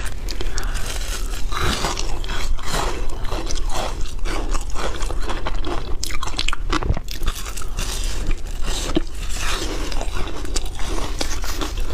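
Ice being bitten and crunched between the teeth close to a clip-on microphone: a dense, unbroken run of irregular sharp crunches and crackles.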